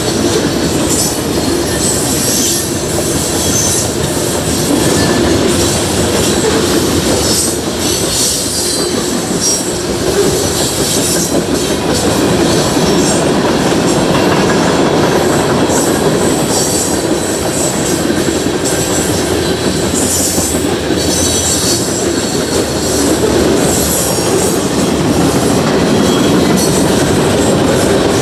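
CSX freight train cars rolling past, steel wheels running and clacking over the rail, with high-pitched wheel squeal coming and going.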